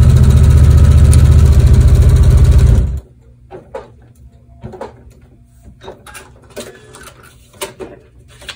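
Sewing machine stitching a paper-pieced seam, running fast and steady for about three seconds, then stopping abruptly. Faint scattered clicks follow.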